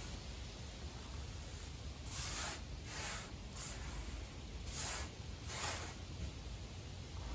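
A hand sweeping pine needles across a tabletop, in four short rustling swishes, over a steady low rumble of wind on the microphone.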